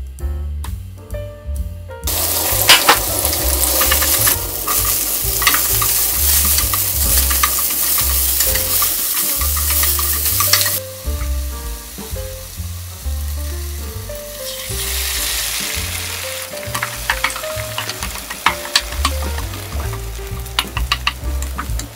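Sliced mushrooms and onions frying in oil in a nonstick frying pan: a loud sizzle with sharp clicks of a spatula as they are stirred, starting about two seconds in, dropping off about halfway and picking up again later. Background music with a steady low beat runs underneath.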